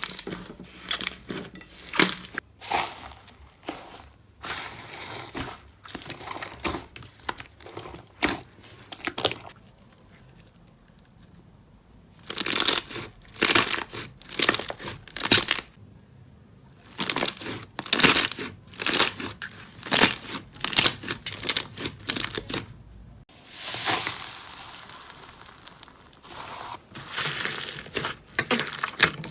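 Slime being squeezed, stretched and poked by hand, in a run of short clips: irregular sharp crackling, crinkling and popping, quieter for a couple of seconds about a third of the way through.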